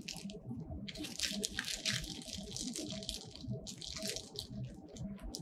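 Plastic bag crinkling and rustling as small accessories are handled, with a few light clicks.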